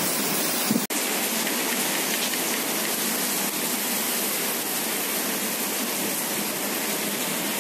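Heavy rain pouring steadily onto paving, puddles and bare ground, an even hiss of downpour that drops out for an instant about a second in.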